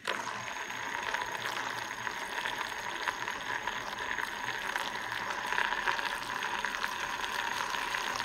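Tornado Shaker battery-powered vortex mixer cup running: its small motor in the base whirs while the blade swirls the water-and-powder drink into a vortex. It switches on suddenly and runs steadily.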